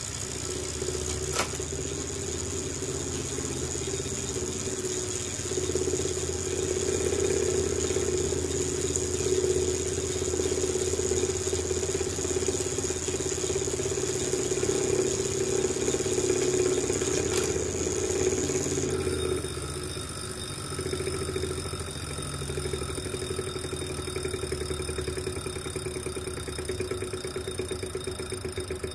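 Wahoo KICKR direct-drive smart trainer spinning, its flywheel and drivetrain giving a steady mechanical drone with a rattle: the noise the owner puts down to the trainer's bearings. About two-thirds of the way through, a high whine drops out and the running sound changes as the cassette stops turning.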